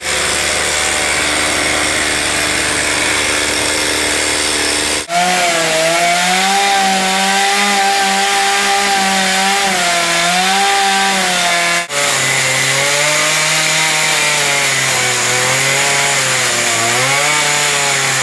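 Zenoah two-stroke chainsaw running at high revs and carving into wood, its engine pitch wavering up and down as the chain bites. The sound breaks off abruptly twice and resumes, running lower after the second break.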